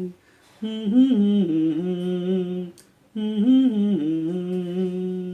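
A man humming a song melody, two phrases of about two seconds each with the same tune, each ending on a held note.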